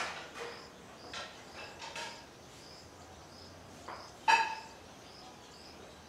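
Short, harsh bird calls at a weaver colony: a few scattered ones early on and one loud, sudden call about four seconds in. Behind them a faint high chirp repeats evenly about twice a second.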